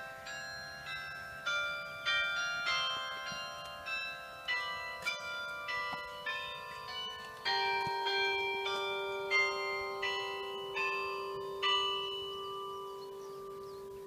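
Gludsted Church's bells ringing together, several pitches struck about twice a second with long ringing tones. A deeper bell joins about halfway through, and near the end the strikes stop and the bells' hum fades away.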